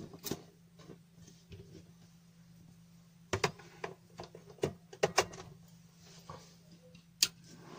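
Scattered clicks and knocks of a mains power cord being handled and plugged into an opened Antminer bitcoin-mining power supply, the sharpest click near the end. Right at the end the supply's cooling fan starts to whir as it powers up from the mains.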